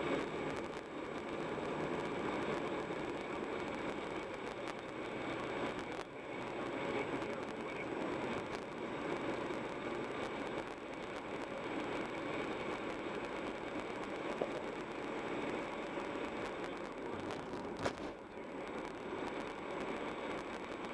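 Steady road and tyre noise with engine hum from a car driving at a steady speed, and an occasional brief click or knock.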